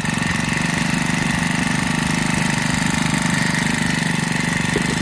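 Robin BH2510 brush cutter's small four-stroke OHV engine idling steadily just after starting.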